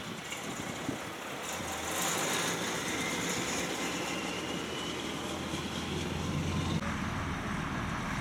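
Heavy diesel truck engine running with a steady low drone, with a faint high whine about three seconds in. The sound changes abruptly about seven seconds in, and a truck engine carries on after the change.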